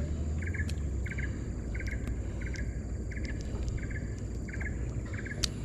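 Insects calling: a short, buzzy pulsed chirp repeating about once every 0.7 seconds, about eight times, over a steady thin high whine and a low rumble.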